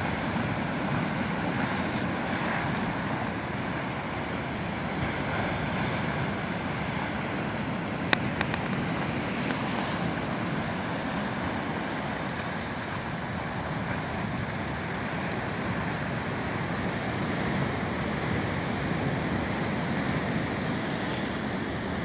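Ocean surf breaking and washing around chunks of glacier ice, a steady rush of waves with wind on the microphone. A single sharp click about eight seconds in.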